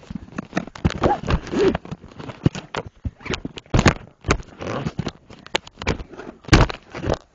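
Handling noise from a camera being picked up and moved about: an irregular run of knocks and thumps against the device, with rubbing and scraping between them.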